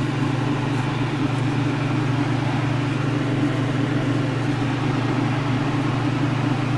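A fan running steadily: a low hum under an even whooshing hiss.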